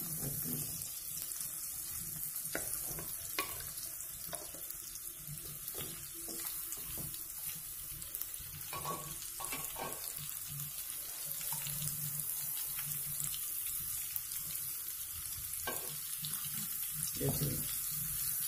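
Masala-coated fish shallow-frying in a little oil in a nonstick pan: a steady sizzle with scattered crackles and pops, and a few scrapes of the spatula against the pan.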